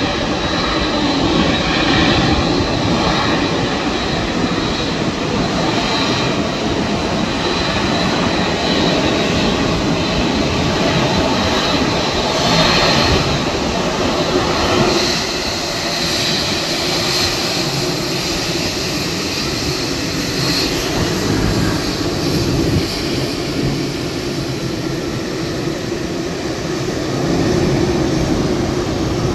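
Boeing 787-9 airliner's jet engines running: a steady loud rumble with a thin high whine.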